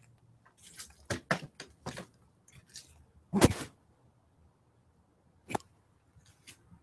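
Handling noise: a series of short rustles and clicks, with one louder, longer knock about three and a half seconds in and a single sharp click about two seconds after it.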